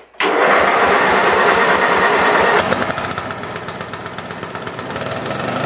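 A Craftsman lawn tractor's Briggs & Stratton engine is cranked by its electric starter, fitted with a newly replaced starter gear, and starts. The sound begins abruptly, changes about two and a half seconds in, and settles into a steady, fast run.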